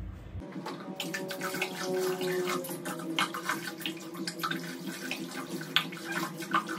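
Running water splashing into a basin as a toddler's hair is rinsed, with a steady rush and many small splashes.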